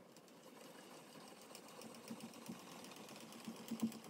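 Bridgeport milling machine being cranked by hand, its feed screw moving with faint, irregular mechanical ticks and clicks.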